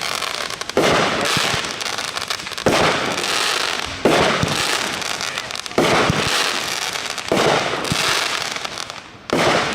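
Fireworks going off: six loud bursts about every one and a half to two seconds, each trailing off in a long crackling hiss.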